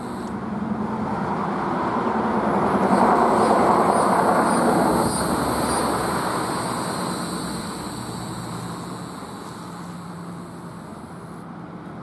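A road vehicle passing by: a steady noise that swells to its loudest about four seconds in and then fades away.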